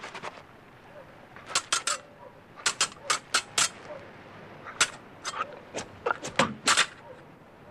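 Rapier blades clashing in a sword fight: sharp metallic clinks in quick bursts of three to five, with short pauses between, some strikes ringing briefly.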